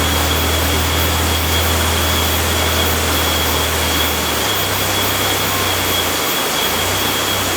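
Mitsubishi Pajero's engine running at low, steady revs under a steady rushing hiss. The engine note changes about halfway through, drops out briefly, then returns near the end.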